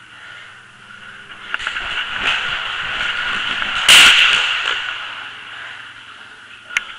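Inflatable zorb ball's plastic shell rustling and knocking as it rolls with a rider inside, building to a loud whooshing burst about four seconds in, with a sharp click near the end.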